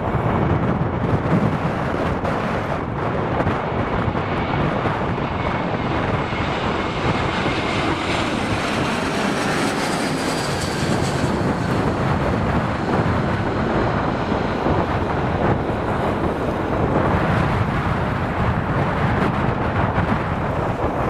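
Airbus A321 jet engines on approach, their whine building to a peak as the airliner passes low overhead about ten seconds in, then fading. Wind buffets the microphone with a steady rumble throughout.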